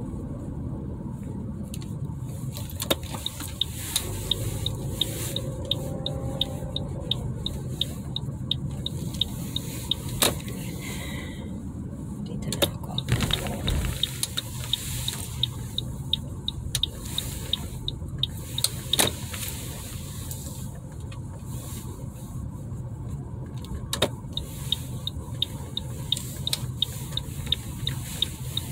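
Steady road and engine noise inside a moving car's cabin, a low rumble with hiss, broken by many short scattered clicks and ticks.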